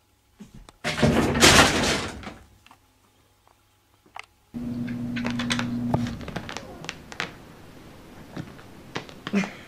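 A cat jumping at a wooden wardrobe door: a loud bang and rattle of the door lasting about a second and a half. Later comes a low steady hum with scattered light knocks.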